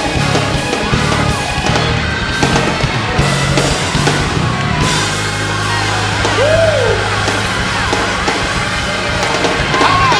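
Loud band music with a drum kit and a held bass line, playing without a break.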